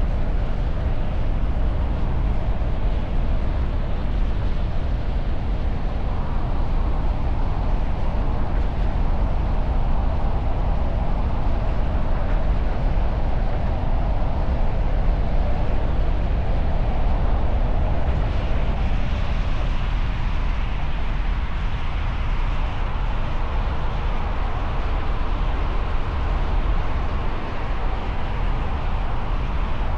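Steady low rumble of a vehicle driving in city traffic: engine and road noise, with no horn standing out. It grows a little brighter and hissier for a few seconds past the middle.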